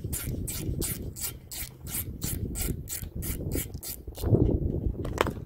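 Small hand ratchet wrench clicking about four times a second as it is worked back and forth on the nut holding the TPMS sensor's valve stem to the wheel. The clicking stops about four seconds in, followed by a louder scrape and a sharp click.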